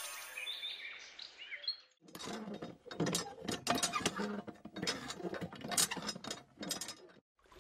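Miniature hand water pump's lever handle being worked up and down, giving a run of irregular clicks and creaks from the handle and its pivot. Before that, in the first two seconds, faint chirping tones fade out.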